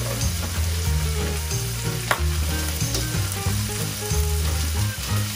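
Pork, squash and string beans in coconut milk sizzling in a pan as they are stirred, with a sharp click about two seconds in.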